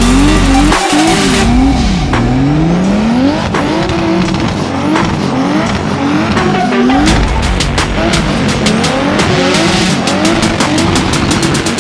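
BMW E36 drift car engine revving up and down again and again as the driver works the throttle through a smoky drift, with the rear tyres squealing and spinning. In the second half there is a quick run of sharp cracks.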